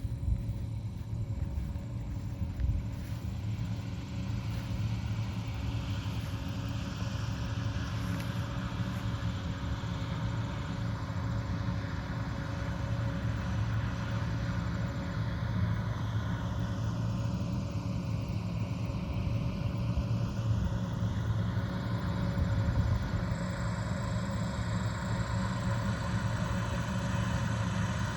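Diesel engine of harvest machinery running steadily, a continuous low hum with no change in speed.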